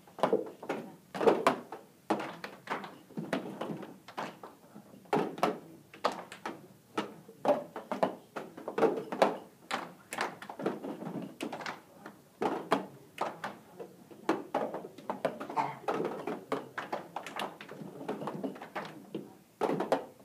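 A group's cup-rhythm routine: many plastic cups knocked down on cardboard on the floor, mixed with hand claps, several knocks a second, loosely together rather than in exact unison.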